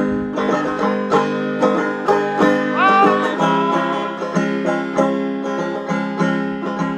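Banjo picking: a steady run of plucked notes with one bent note about three seconds in, an instrumental stretch between the sung lines of a folk song.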